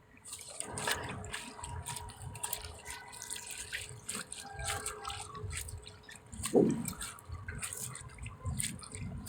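Water splashing and dripping in many small irregular splashes, with one louder, lower thump about six and a half seconds in.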